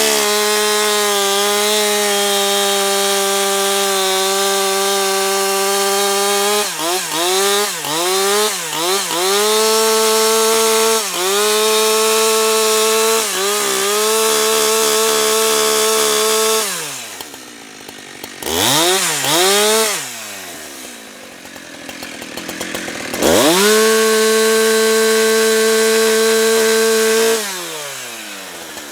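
Husqvarna 365 two-stroke chainsaw running at full throttle through a cut, held steady for several seconds at a time. Its pitch dips and recovers several times as the chain bites into the wood. Past the middle it drops to idle with one short rev, then goes back to full throttle and eases off near the end.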